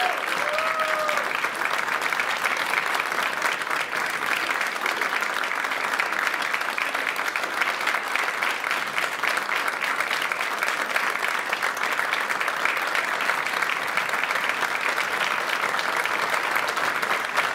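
Audience applause: many hands clapping in a dense, steady stream, with a brief voice near the start.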